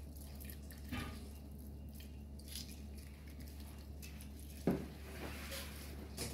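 Soft kitchen handling sounds over a steady low hum: a mesh strainer and a wooden spoon moved about over a pot of juice, with a few light knocks, the loudest a short thump near the end.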